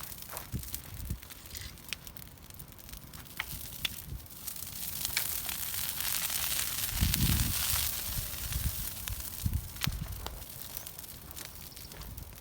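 A large wood fire of fallen tree branches crackling and hissing, with scattered sharp pops. It grows louder in the middle.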